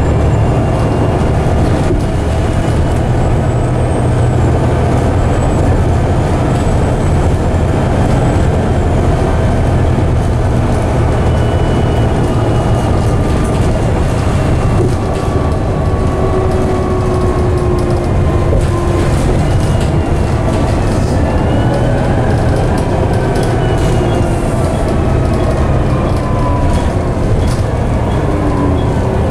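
Volvo B7TL double-decker bus under way, heard inside from the upper deck: its Volvo D7C diesel engine makes a steady low drone, with whining tones from the driveline that slide down in pitch over the last several seconds.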